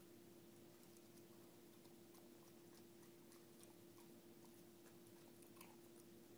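Faint, scattered light clicks and taps as a dog noses a plastic treat-dispensing bottle around on carpet to get Cheerios out, over a steady low hum.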